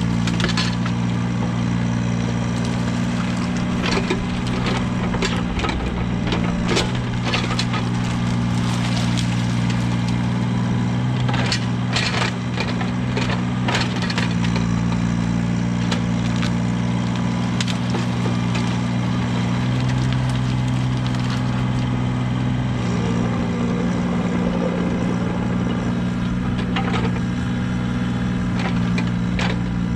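An engine running steadily at a constant speed, with irregular cracking, crunching and clattering over it.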